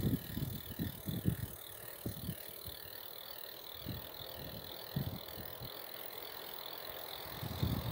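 Bicycle rear freewheel ticking steadily while coasting, with low gusts of wind on the microphone near the start and again near the end.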